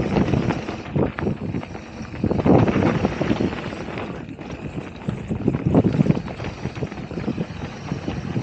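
Mountain bike riding fast downhill on a dirt trail: tyres rolling over dirt and stones with a constant clatter and rattle from the bike, and wind buffeting the microphone. Heavier jolts come about two and a half seconds in and again about six seconds in.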